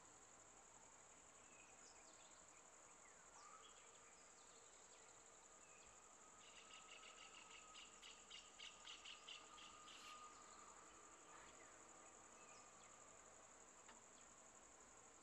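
Faint forest ambience: a steady high-pitched insect drone, with a quick run of chirps, about four a second, for a few seconds around the middle, and a few scattered bird calls.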